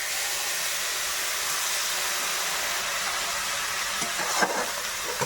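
Hot oil in a kadai sizzling in a steady hiss as a little water goes in with frying cashews, poppy seeds and fried onions, with a few short knocks of a spoon against the pan about four seconds in.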